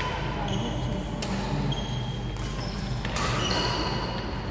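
Badminton rackets striking the shuttlecock in a rally, three sharp hits about a second apart, ringing briefly in a large hall, with short high squeaks after some hits.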